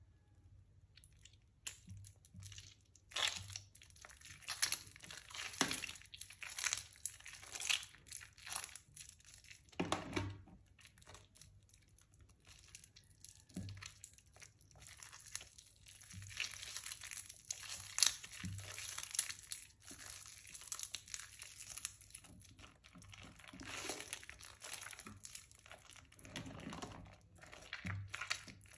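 Soaked, mushy Palmolive soap bars being squeezed and crumbled by hand in water: an irregular run of soft crunching and crumbling sounds.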